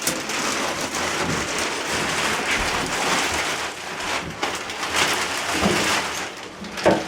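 Steady rain with a few short knocks in the second half.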